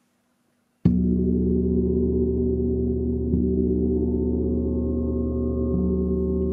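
Large hanging gong struck once with a wooden mallet about a second in, then ringing on with a deep, sustained hum of many overlapping tones.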